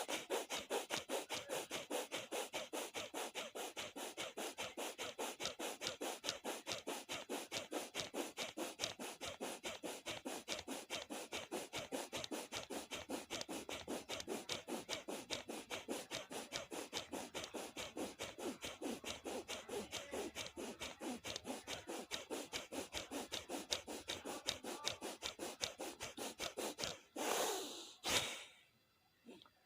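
A man breathing rapidly and forcefully through the nose in fast bhastrika pranayama (bellows breath), in a quick, even train of in-and-out strokes. The rhythm stops about 27 seconds in, and two deeper, longer breaths follow.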